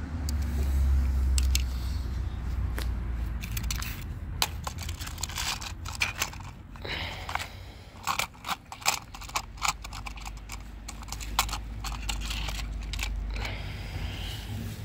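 Small die-cast toy cars and a plastic toy car-carrier truck clicking and clattering as they are handled, the sharp clicks coming thickest in the middle, over a low rumble.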